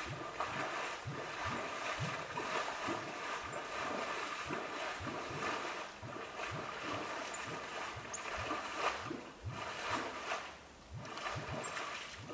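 Water churning and sloshing in irregular low splashes, two or three a second, from a patch of swamp surface boiling up with white foam, which the uploader guesses is swamp gas.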